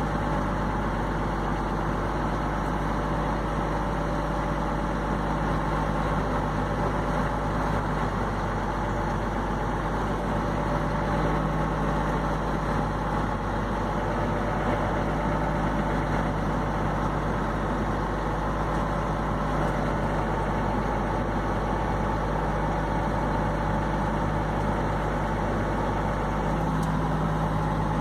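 Diesel engine of a large farm machine running steadily under load, heard from the operator's seat, as it pulls a collapsed grain bin on a chain. Its note rises slightly near the end.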